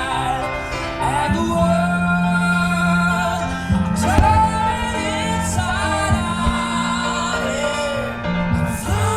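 A song with a singing voice over sustained bass notes, with a couple of sharp bangs about four seconds in.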